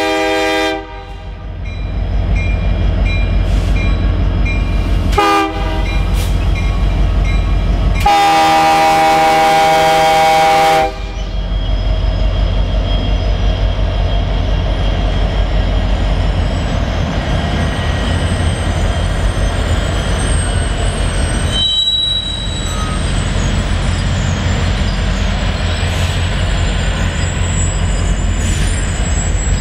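Union Pacific SD70M diesel locomotive horn blowing the end of a grade-crossing signal: a long blast cutting off about a second in, a short blast about five seconds in, then a final long blast of nearly three seconds. After that the train runs past with a steady low rumble and a thin, high steady wheel squeal.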